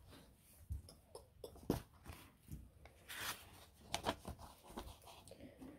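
Faint rustling of paper as the pages of a softcover picture book are turned and handled, several separate rustles.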